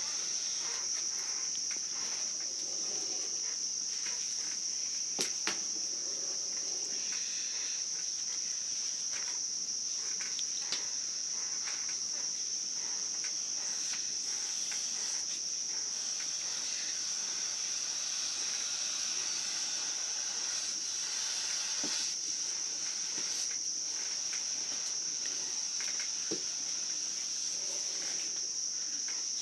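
Steady, high-pitched chirring chorus of night insects. Under it are scattered light clicks and scrapes as a wooden stick works thick ugali in a metal pot over a wood fire.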